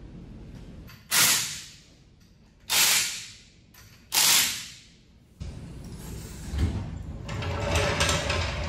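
Impact wrench driving the wheel bolts home on a VW Beetle's front wheel in three short bursts about a second and a half apart. Then a lower, steadier rumbling noise takes over.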